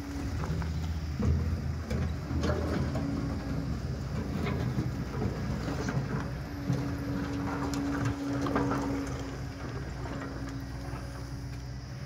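Kobelco crawler excavator's diesel engine running steadily, with a steady whine from its hydraulics that comes and goes, while its crusher bucket works a rock pile and stones knock and clatter irregularly. A motorcycle passes close by near the start.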